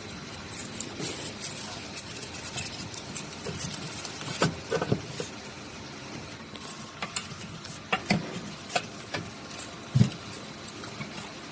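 Parts being handled during repair work: irregular clicks and knocks, with a louder knock near the end.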